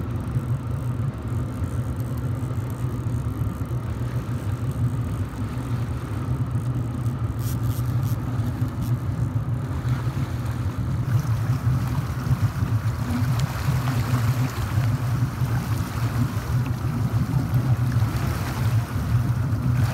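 Boat engine running steadily at trolling speed, a constant low drone. From about halfway through, water splashing and churning beside the hull grows louder.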